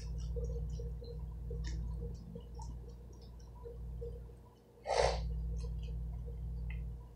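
A person eating, with small wet mouth clicks and smacks from chewing over a steady low hum. About five seconds in comes one short, loud breath through the nose, a snort.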